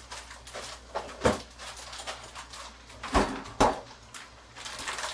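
Refrigerator door and items being handled: a knock about a second in, then two loud thuds a little after three seconds as the fridge door is shut.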